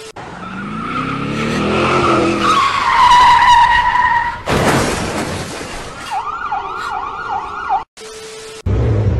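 A car engine revving up under a long tyre squeal, then a brief burst of noise, then a siren wailing in about four quick rise-and-fall sweeps. Short bursts of TV-static glitch noise with a steady tone sound at the start and again about eight seconds in.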